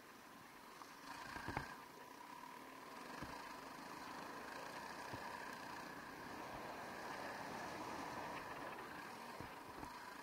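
Honda CRF300L Rally's single-cylinder engine running steadily, with a few sharp knocks, the loudest about one and a half seconds in.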